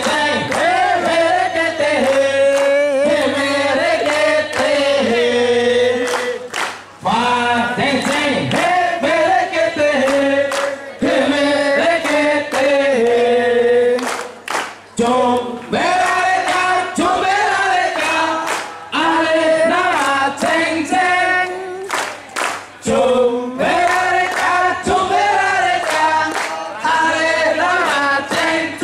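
A large group of men singing a marching song together in unison. The verses are sung in phrases of about seven to eight seconds, with short breaks for breath between them.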